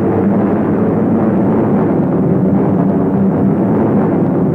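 Steady, loud drone of piston aircraft engines at cruise, a continuous rumble with a steady low hum and no separate bangs.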